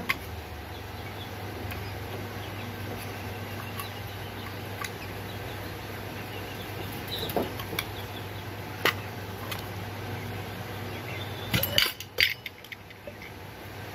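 Metal spray-gun parts and a paint cup clinking and clicking as they are handled, a few isolated clicks and then a short clatter near the end, over a steady low hum that drops away just after the clatter.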